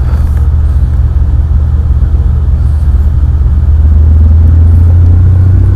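Helicopter running nearby: a loud, steady low engine and rotor rumble that grows a little louder about four seconds in.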